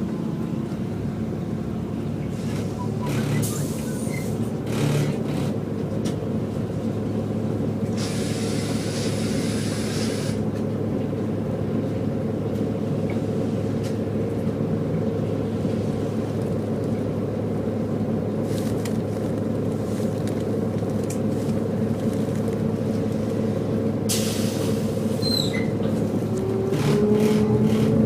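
Volvo B7TL double-decker bus's six-cylinder diesel engine running steadily, with a two-second hiss of air about eight seconds in and some rattles. Near the end a whine rises in pitch as the bus gathers speed.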